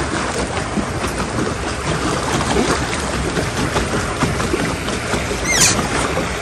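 Water churning and splashing around a pedal-driven solo paddle boat, with wind rushing on the microphone. A brief rising squeak sounds about five and a half seconds in.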